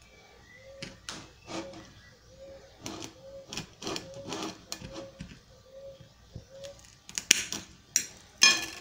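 Kitchen knife slicing through a yellow pitaya's thick skin and flesh and scraping on a glass plate: a run of irregular short cutting and scraping strokes, with two louder scrapes near the end.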